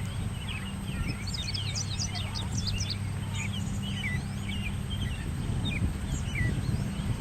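Songbirds chirping and singing, many short quick calls with a dense flurry about one to three seconds in, over a steady low rumble.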